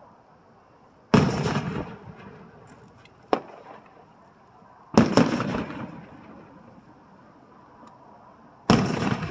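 Aerial firework shells bursting: three loud booms about four seconds apart, each fading out over a second or so, with one short, sharper crack between the first two.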